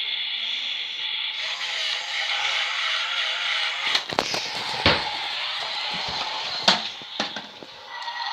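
Road Rippers toy Ford Mustang doing its burnout: a steady, hissy engine-and-tyre-screech sound effect through the toy's small speaker, with a few sharp knocks in the middle, fading away near the end as the car releases.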